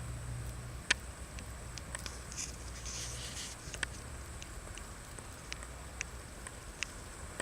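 Pet rabbit eating: irregular sharp crunching clicks of its chewing, with a brief rustle in the middle.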